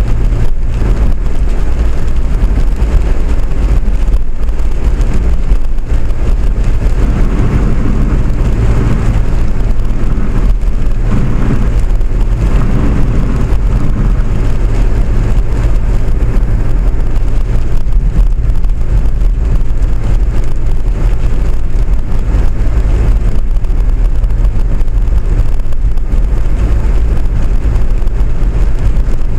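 Steady low rumble of a moving vehicle heard from on board, with a busier, louder stretch about a third of the way in.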